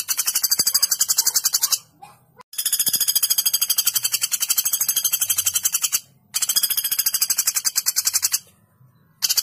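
Common flameback woodpecker (pelatuk bawang) calling in long, sharp rattling trills of about ten high notes a second. The trills break off briefly about two seconds in, again at about six seconds, and for nearly a second at about eight and a half seconds, then resume.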